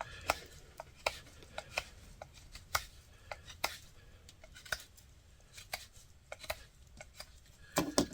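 Swiss Army knife blade whittling the end of a wooden plug: a string of short, irregular shaving clicks, about one or two a second, with a louder one near the end.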